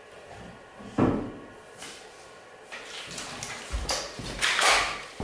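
A person handling things and moving about: a single knock about a second in, then a series of rustles and shuffles, loudest near the end as the person passes close by.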